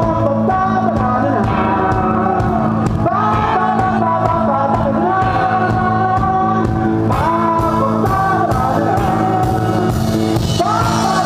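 An indie rock band playing live and loud: electric guitar, bass and a drum kit with crashing cymbals. A voice sings phrases over it, each starting roughly every four seconds.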